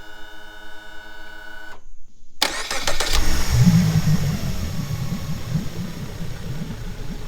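Background music stops a couple of seconds in. Then the Suzuki DF70A four-cylinder four-stroke outboard is cranked and catches, running up loudly for a moment before settling into a steady, smooth idle. Fresh spark plugs have cured its misfire.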